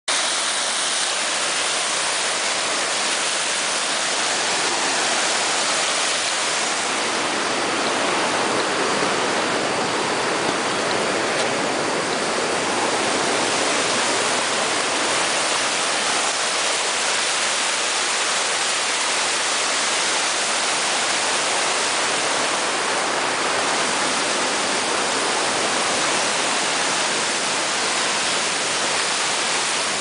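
Whitewater of a mountain stream cascading over boulders, a steady rushing noise.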